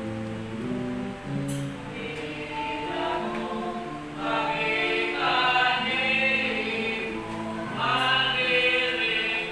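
Group of voices singing a slow devotional song in long held notes, swelling fuller and louder about four seconds in and again near the end.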